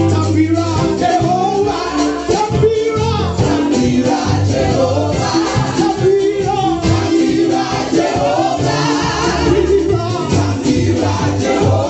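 Gospel praise music: singing over a band with drums and a steady bass line, played with a regular beat.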